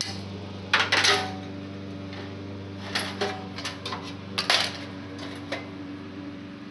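Sheet-metal parts of a space heater clanking and rattling as they are handled and pulled apart: several sharp metallic clanks, the loudest about a second in and again a little past the middle, over a steady low hum.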